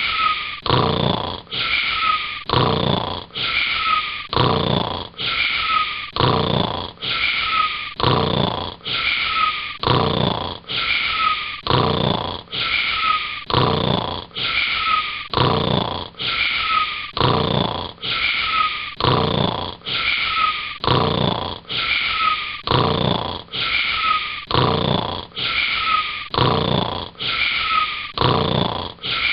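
Snoring repeated in quick, evenly spaced snores, a little over one a second, each one short with a small falling squeak in it.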